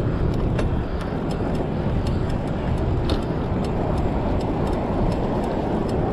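Wind and road noise rushing over a handlebar-mounted camera on a moving bicycle, with scattered light clicks and rattles from the bike.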